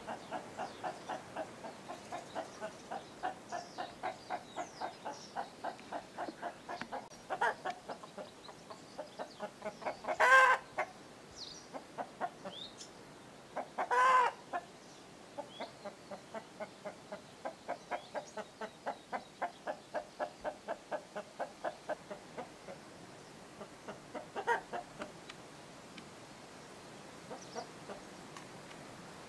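Frogs calling in a steady, rhythmic chorus of short croaks, about three a second, with small birds chirping faintly. Two louder, longer calls stand out about ten and fourteen seconds in.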